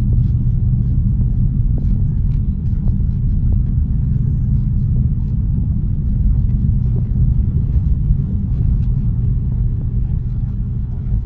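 Steady low rumble of an aircraft in flight, heard as cabin noise, with faint scattered ticks over it.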